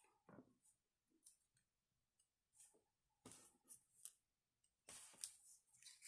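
Faint handling noises of small paper strips: a few short rustles and light clicks as the paper is picked up, folded and pinched between the fingers.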